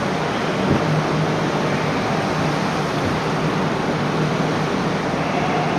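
Steady, even rushing noise of machinery and ventilation fans in a car ferry's enclosed vehicle deck, with a faint low hum underneath.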